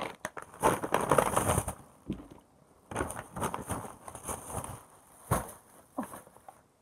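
Shopping bag rustling and crinkling in two spells, with a few sharp knocks from handling.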